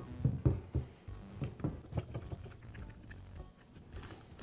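Faint clicks and scrapes of a screwdriver turning out the reverse-thread retaining screw inside a DeWALT drill chuck.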